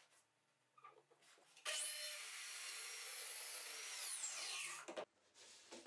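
Bosch plunge-cut track saw running along its guide rail and cutting wood for about three seconds, starting a little under two seconds in; its pitch falls near the end as the motor winds down, then the sound cuts off suddenly. A few light knocks and clicks come before and after it.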